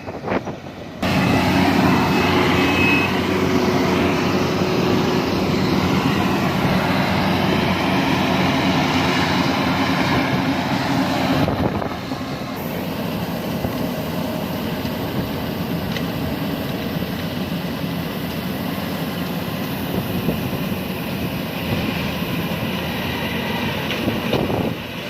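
Diesel engine of farm machinery running steadily under load. About eleven seconds in, the sound changes and becomes a little quieter.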